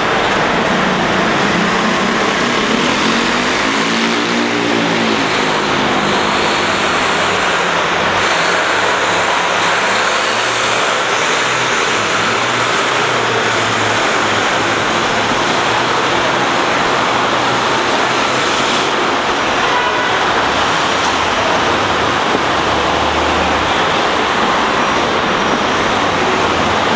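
Steady, dense city traffic noise. About three to six seconds in, a heavy diesel engine's pitch rises and then falls as it accelerates away.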